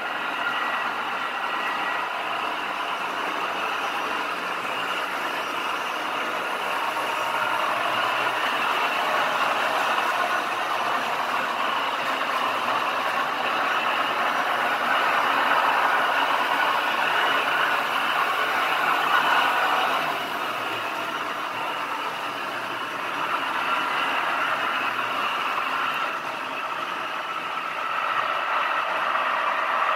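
Märklin HO model trains running on the layout's track: a steady rolling rumble of wheels and small electric motors that swells and fades slowly as trains pass.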